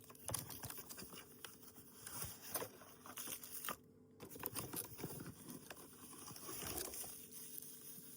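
Faint handling of a cardboard box and its packaging: rustling, crinkling and scattered light taps and clicks.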